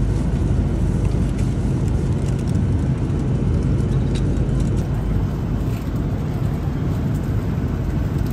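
Steady rumble of road and engine noise inside a moving car.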